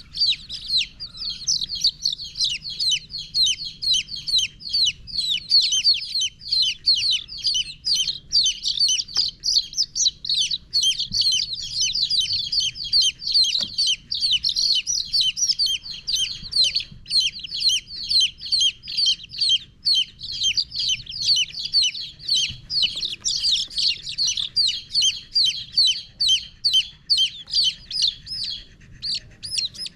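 A group of baby chicks peeping without pause: short, high, downward-slurred peeps, several a second, overlapping one another.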